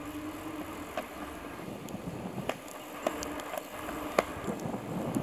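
Road bike rolling over a rough, patched concrete road: steady tyre noise with a few irregular sharp clicks and knocks, the loudest about four seconds in, as the bike jolts over bumps and joints.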